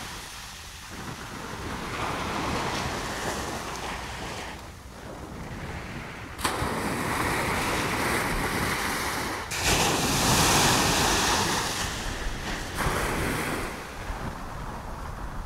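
Ocean surf breaking on a sandy beach, the waves rushing up the sand and falling back in uneven surges, loudest about ten seconds in.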